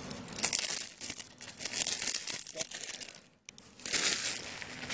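Plastic shrink-wrap on a DVD case crinkling and tearing as it is unwrapped, in irregular bursts of rustling, with a brief break about three and a half seconds in.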